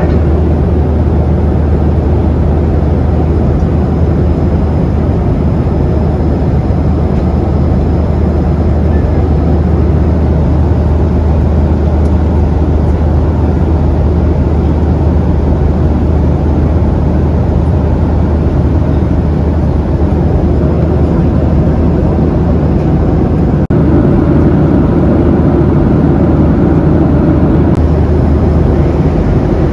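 Steady engine drone heard inside the cabin of a Boeing 737-800, a strong low hum under an even rushing noise. It gets slightly fuller over the last few seconds.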